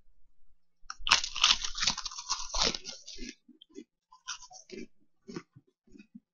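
Crackers being crunched and chewed in the mouth. A dense run of loud crunching starts about a second in, then thins to scattered bites and chews after about three seconds.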